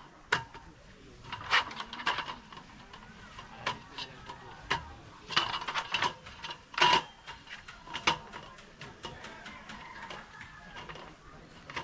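A series of irregular sharp clicks and knocks.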